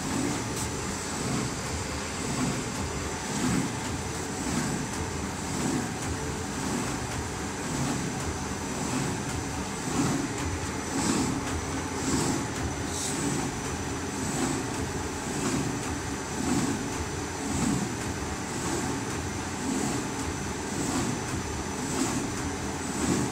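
QZ1300-2 paper sheet-cutting machine running steadily, with a regular beat about once a second.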